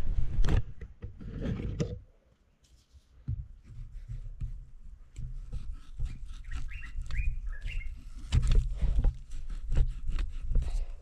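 Knife cutting through raw, hard sweet potato: scattered sharp knocks and taps, denser in the second half. A bird chirps briefly a few times in the middle.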